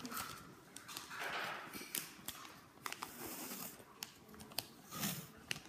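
Toy packaging being handled and opened by hand: short rustles with scattered sharp clicks, faint and irregular.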